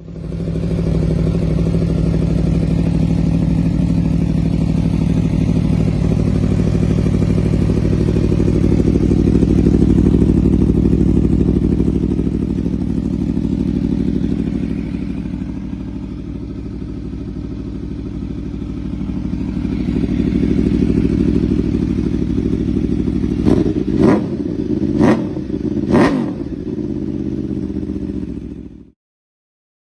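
Aprilia V4 superbike engine with a Leo Vince aftermarket exhaust running steadily, its level swelling and easing. Near the end come three quick, sharp throttle blips, and then the sound cuts off abruptly.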